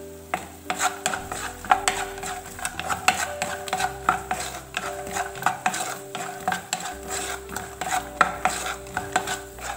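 Wooden spatula stirring peanuts frying in oil in a non-stick pan: a busy run of scrapes and clicks as the nuts knock against the pan, over a light sizzle. Beneath it, a steady hum cuts in and out every second or two.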